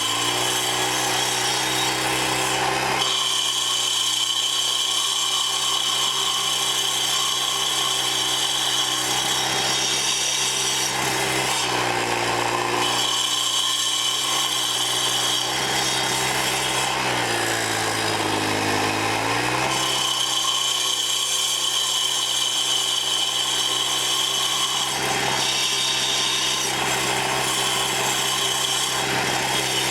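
Troy-Bilt sidewalk edger's engine running at speed while its carbide-tipped saw blades grind into a cedar stump, a steady cutting sound. The engine pitch sags and recovers a couple of times as the blades bite in under load.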